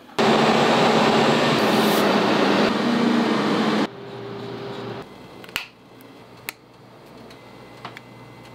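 Loud, steady machine noise with a low hum that stops abruptly about four seconds in, followed by quiet background noise with a few sharp small clicks.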